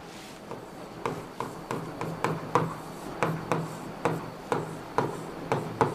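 A pen tapping and scraping on an interactive display board while writing, a sharp tap with each stroke, about two to three a second.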